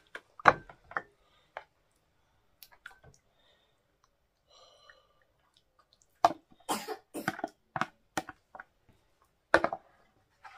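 Spoon knocking and scraping against a plastic bowl and plate as thick soup is scooped and tipped out: scattered sharp knocks, busiest from about six seconds in.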